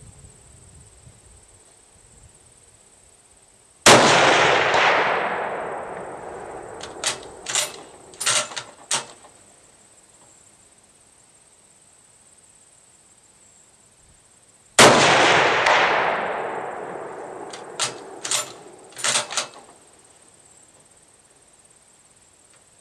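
Two shots from a Mauser K98 rifle in 8mm Mauser, about eleven seconds apart, each loud report echoing away over about two seconds. About three seconds after each shot comes a quick run of four sharp clicks.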